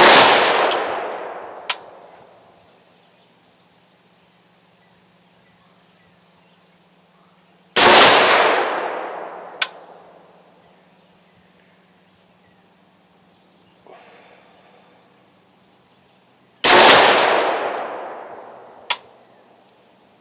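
Three single rifle shots from a Head Down Defense HD15, spaced about eight to nine seconds apart, each ringing out and fading over a couple of seconds. A short sharp click follows about two seconds after each shot.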